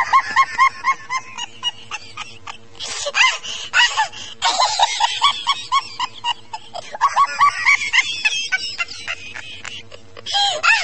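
Women ululating: high, rapid trilling calls repeated in several runs of about four to five pulses a second, with short pauses between the runs.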